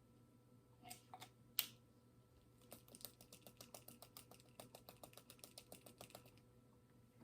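Faint handling of a plastic protein-test swab and its tube: a few separate clicks, the sharpest about a second and a half in, then a quick, even run of light ticks, roughly seven a second, for about three and a half seconds.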